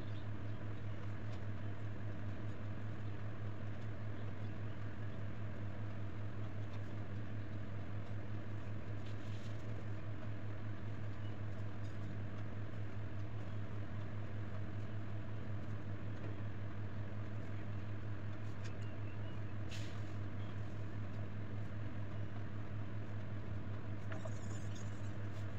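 A steady low hum with even overtones, unchanging throughout, with a few faint short clicks and a sharp click at the very end.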